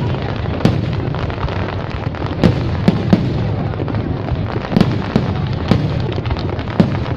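Fireworks display: sharp bangs and pops at irregular intervals, roughly one a second, over a continuous deep rumble of distant bursts.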